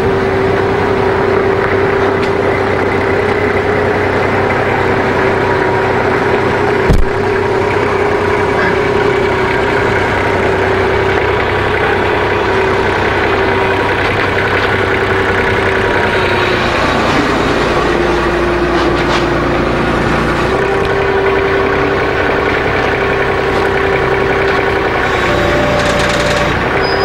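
An engine running steadily with a constant whine, its pitch sagging for a few seconds about two-thirds of the way through and then recovering. A single sharp knock stands out about seven seconds in.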